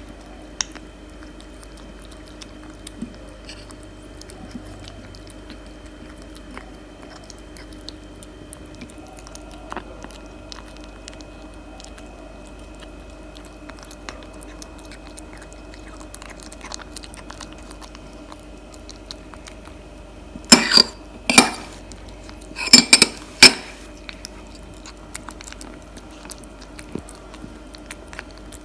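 Kitten eating wet cat food and kibble from a plate, with soft chewing and lapping clicks throughout over a steady faint hum. A little past two-thirds of the way through comes a quick run of about five loud clinks of the metal spoon against the plate.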